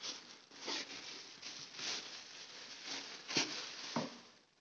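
Thin plastic bag crinkling and rustling as a portable speaker is pulled out of it and out of its cardboard box, with a couple of sharper crackles near the end.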